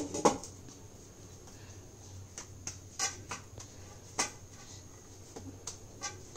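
Atta dough being kneaded by hand on a plate: quiet, scattered soft taps and clicks, over a low steady hum.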